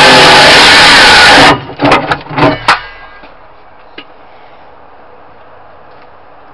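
Electric circular saw cutting through a wooden cabinet panel at full power, its motor whine wavering under load, then cutting off abruptly about a second and a half in. A few sharp clattering knocks follow, with one fainter knock a moment later.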